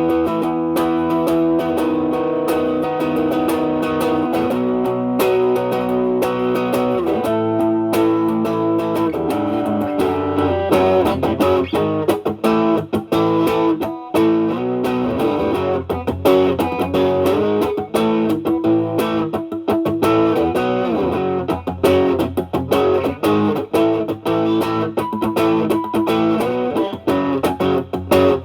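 Stratocaster with single-coil pickups played through an Ibanez Tube Screamer Mini overdrive pedal, drive knob at about three o'clock, into the clean channel of a Marshall Valvestate amp. It is improvised blues-style playing: held chords and notes, turning to quicker picked lines about ten seconds in.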